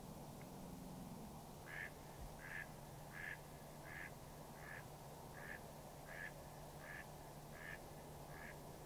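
Mallard quacking faintly in a steady series of about ten short quacks, each a little under a second apart, starting about two seconds in.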